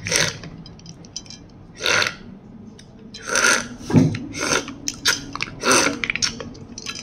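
Ladle scooping and sloshing through a glass bowl of creamy fruit cocktail with ice and jelly cubes: several short wet splashes and pours as the liquid runs back off the ladle, with a few light clicks of ice and ladle between them.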